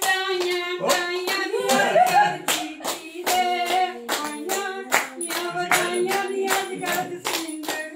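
A group of women clapping in a steady rhythm, about three claps a second, while singing a song together.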